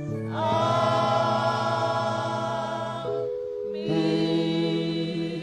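Church choir singing a song in long held chords, changing chord twice and sustaining the last one.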